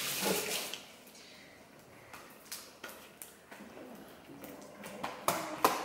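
Sticky slime being stretched and squeezed by hand, making scattered small clicks and pops, with a few louder ones near the end.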